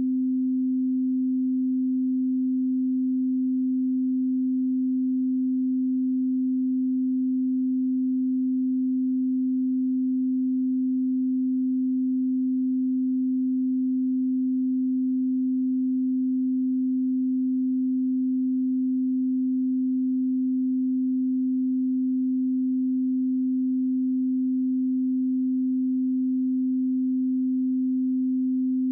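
A pure 258 Hz sine calibration tone, held steady at one pitch and level without a break.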